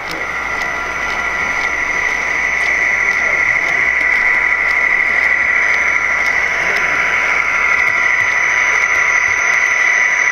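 Diesel prime mover sound of a Walthers HO EMD SD60's onboard sound decoder, played through the model's small speaker: a steady engine drone with a strong high tone running over it. It grows louder over the first few seconds, with faint regular ticks throughout.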